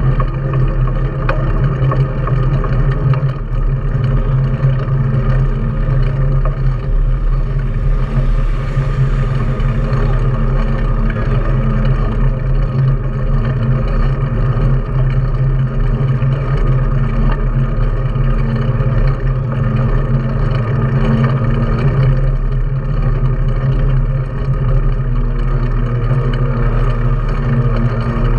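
Steady riding noise from a mountain bike rolling along asphalt: wind rushing over the bike-mounted camera's microphone, with the steady hum of the knobby front tyre on the road.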